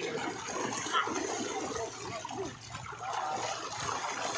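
Water splashing and churning as a crowded mass of fish thrashes at the surface inside a net pulled tight in a fish cage.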